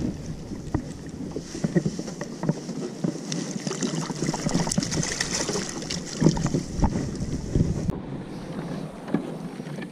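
Scattered knocks and taps on a sit-on-top fishing kayak while a caught rockfish is handled with a plastic fish grip, over water and wind on the microphone. About eight seconds in the sound cuts abruptly to a quieter, steady wash of water.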